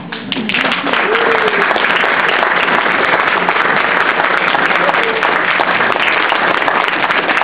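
Audience applauding. The clapping starts about half a second in and holds steady, with a voice faintly heard under it.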